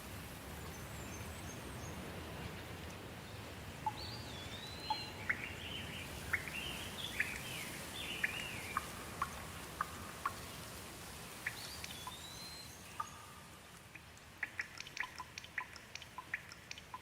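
Steady rain with birds calling in short rising and falling chirps through the middle. Near the end comes a quick run of water drips plinking.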